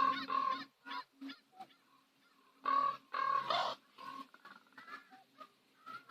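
Common ravens calling: a loud group of harsh croaks right at the start and another about three seconds in, with quieter single calls between and near the end.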